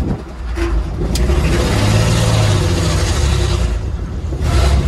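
Lifted 1955 Ford rat rod pickup's engine running under light throttle as the truck pulls in, its note rising and then holding steady, with a sharp click about a second in.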